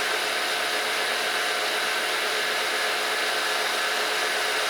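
Steady, unchanging whir of the Monarch 10EE lathe running.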